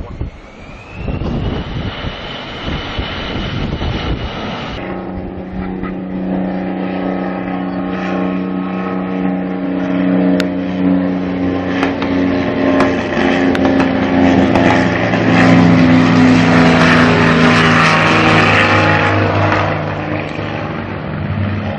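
Jet aircraft engines. First an airliner's engine whine rises in pitch over gusting wind noise. After a sudden cut about five seconds in, a military jet's engines give a steady drone that grows louder toward the end, peaking a few seconds before the end.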